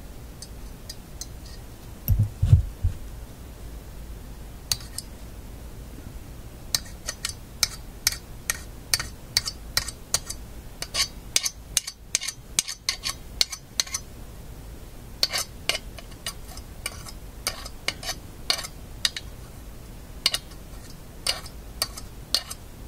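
Irregular small clicks and taps from the Philco shadow meter and its horseshoe magnet being handled and the magnet fitted back onto the meter, with a couple of dull knocks about two seconds in.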